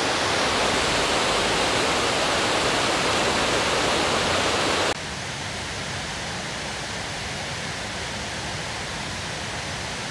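Water spilling down the stone steps of a step dam, a steady loud rushing. It cuts off abruptly about halfway through to a quieter, steady rushing hiss.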